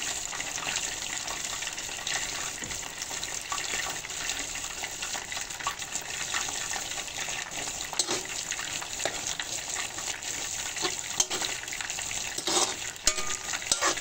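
Chicken pieces in tomato sauce sizzling in a pan while a metal ladle stirs them, with scattered scrapes and knocks of the ladle against the pan, most of them in the last few seconds.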